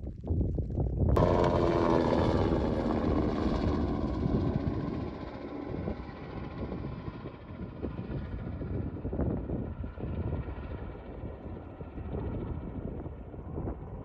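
Helicopter flying past low, its rotor beat and engine coming in abruptly about a second in and loudest over the next few seconds, then fading steadily as it moves away. Wind rumbles on the microphone underneath.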